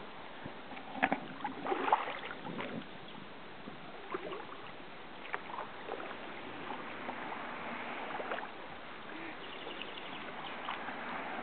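Kayak paddle strokes dipping and splashing in the water: irregular small splashes, most of them in the first few seconds, over a steady hiss.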